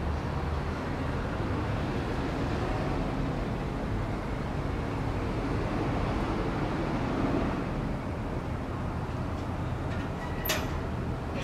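Steady low rumble and hiss of background noise, with one short sharp click near the end.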